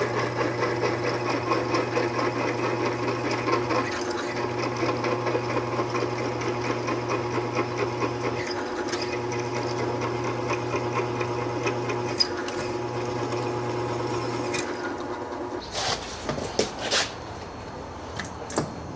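Electric drill running under load, boring holes in a metal hub, with a steady motor hum and rattly cutting noise. It lets off briefly three times, then stops about 15 seconds in, followed by a few light metallic clicks and knocks.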